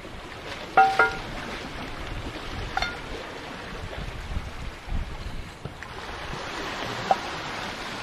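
A cast iron skillet set down on rock: a loud ringing metallic clank about a second in, then a lighter clank a couple of seconds later. Waves wash against the rocks and wind blows throughout.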